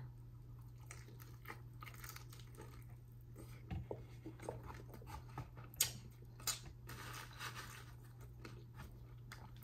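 A person eating close to the microphone: quiet chewing with scattered small crunches and mouth clicks, over a low steady hum.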